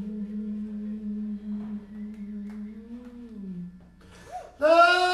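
A man's voice softly humming one long low note that bends up a little and fades out. After a short pause, a loud held sung note comes in near the end.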